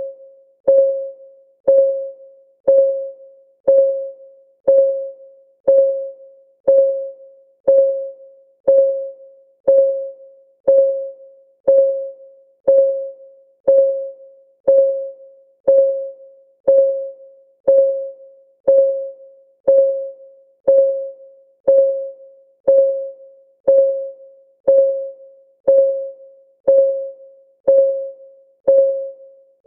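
Timer's clock-tick sound effect, one tick a second, each a short pitched tock that dies away quickly.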